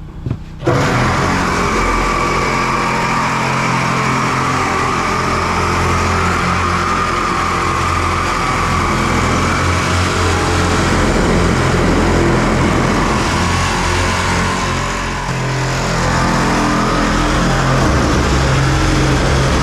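Power saw cutting into the steel wall of a 275-gallon above-ground heating oil tank. It starts about a second in and runs steadily under load.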